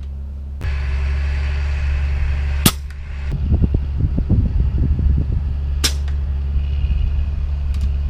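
Two shots from a .22 Umarex Gauntlet 2 PCP air rifle fitted with a carbon-fiber moderator, about three seconds apart, each a sharp crack. A steady low hum runs underneath, and a short spell of rapid fluttering comes between the shots.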